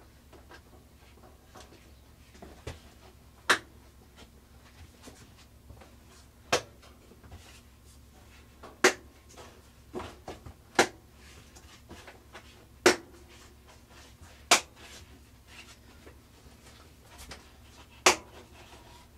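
Plastic tub ring on a 2003 Maytag Performa top-load washer being clipped down onto the outer tub: about eight sharp snaps at uneven spacing, a second or more apart, as each tab clicks into place, with light handling noise between.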